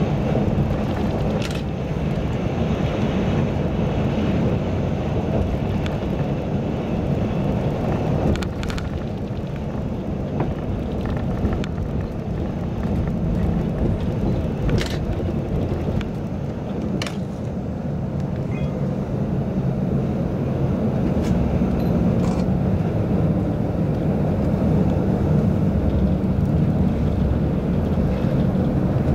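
Steady road and engine noise inside a bus cruising at highway speed, with a few faint clicks.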